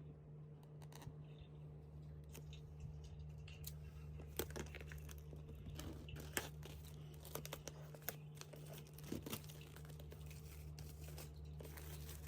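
Faint tearing and crinkling of product packaging being opened by hand, with scattered small clicks and taps. A steady low hum runs underneath.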